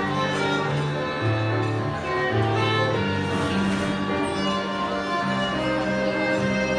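Instrumental introduction of a Christian wedding song, with no voice: a string melody over long held chords and a bass line that moves slowly from note to note.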